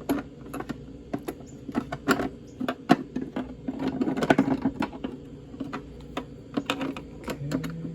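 Irregular sharp plastic clicks and taps as the inner lens of a Honda Pilot tail light assembly is worked into its housing with a pick, with a denser run of clicks around the middle.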